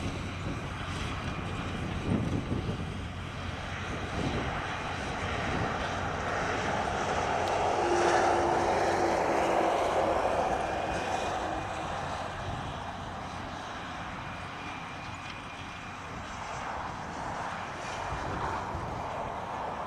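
Passing road traffic over the steady running of a New Holland T7.235 tractor pulling a plough; one vehicle swells past, loudest about eight to ten seconds in.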